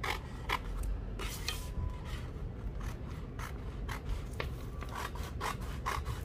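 Scissors cutting through a sheet of white glossy adhesive vinyl film (skotlet): a run of short snips at an uneven pace, with the blades rubbing through the sheet.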